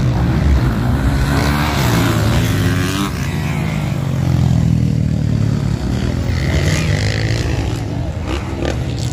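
Motocross dirt bikes racing on a dirt track, engines revving up and down through the gears. A green Kawasaki passes close about four seconds in, the loudest part.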